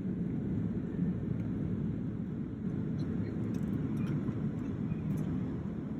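Jet airliner cabin noise: a steady low rumble of the engines and airflow heard from inside the cabin while the plane is moving.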